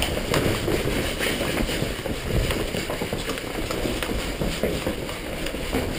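Hurried footsteps on concrete floors and stairs with the rustle and rattle of worn tactical gear, heard close up as a steady, irregular patter of small knocks over a rustling noise.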